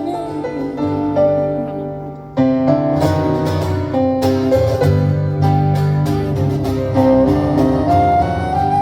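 Live band playing an instrumental passage between sung lines, with keyboard and guitar over a bass line; a fuller band sound comes in about two and a half seconds in.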